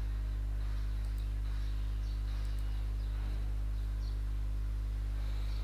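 Steady low electrical hum, mains hum picked up by the recording microphone, with a faint background hiss.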